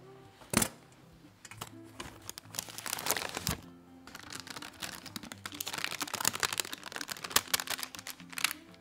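A sharp click and, a few seconds later, a knock from the metal springform pan as it is released and its ring lifted off, followed by parchment paper crinkling as it is peeled away from the baked chocolate sponge cake. Soft background music plays underneath.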